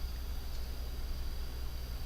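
Steady low electrical hum with faint hiss: background room and recording noise, with no distinct handling or clicking sounds.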